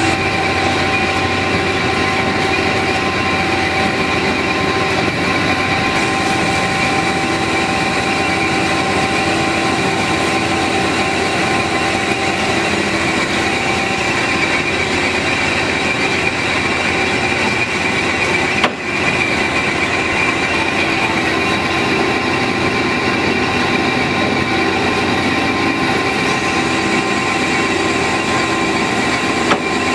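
HEM WF160LM-DC horizontal band saw running under power: a steady mechanical noise with several constant whining tones, briefly dipping once about two-thirds of the way through.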